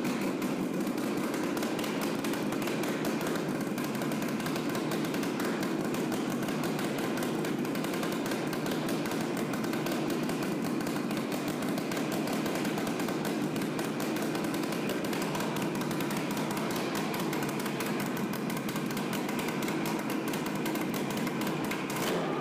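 Freshly rebuilt Buran snowmobile RMZ-640 two-stroke twin engine running steadily with no exhaust pipe or muffler fitted, on a carburettor with no cables or choke and roughly set ignition.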